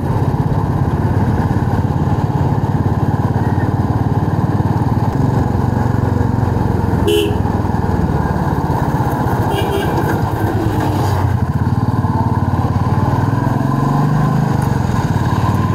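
Royal Enfield Classic 350's single-cylinder engine running steadily under way at cruising speed.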